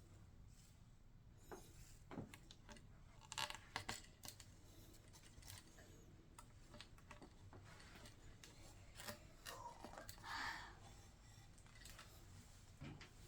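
Faint clicks and short rustles of small plastic landing-gear parts being handled and pressed into a scale model airliner, in two small clusters: a few seconds in and near the two-thirds mark.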